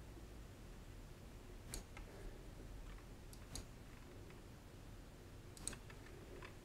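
A handful of faint computer mouse clicks, scattered a second or two apart, over low room tone.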